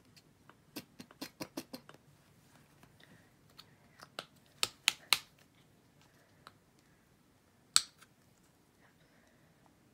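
Sharp clicks and taps of small hard objects being handled on a tabletop. A quick run of about six comes about a second in, three louder ones around the middle, and one loud single click later.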